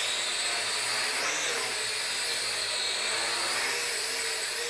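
Bojiang S1 toy quadcopter hovering, its motors and propellers giving a steady high whine that wavers slightly in pitch as the motor speeds adjust.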